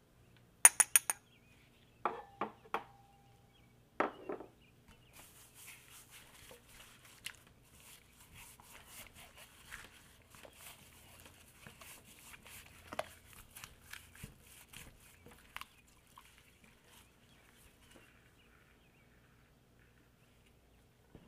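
A small glass spice dish clinks several times against a glass mixing bowl, one strike leaving a brief ring. Then gloved hands squish and rub spices into raw chicken pieces in the bowl: a steady run of soft wet clicks and crackles that dies away before the end.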